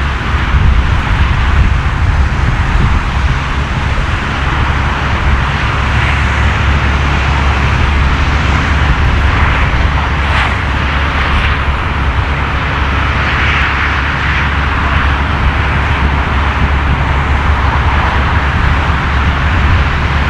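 Jet airliner engines running with a loud, steady rumble and hiss.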